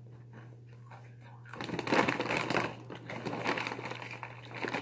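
A large plastic bag of cookies-and-cream cereal crinkling as a hand reaches in for pieces, starting about a second and a half in, loudest at first, then going on more softly.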